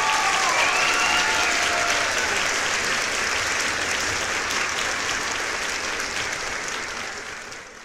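Steady rushing and splashing of swimming-pool water as a swimmer dives in and others churn the water, with a few faint calls near the start.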